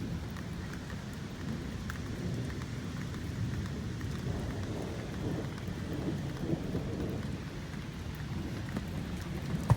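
Rain falling, with a steady low rumble underneath and faint scattered ticks, and one sharp click near the end.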